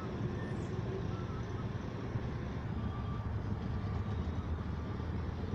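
Small engines of railroad speeder cars running, a steady low hum.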